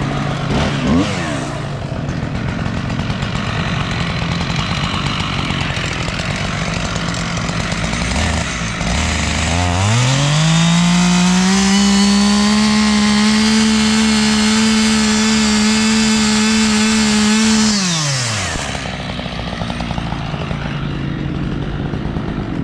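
Two-stroke chainsaw idling, then opened to full throttle with a quick rise in pitch about ten seconds in. It runs flat out for about eight seconds, cutting out the uncut wood left in the middle of the hinge, then drops back to idle.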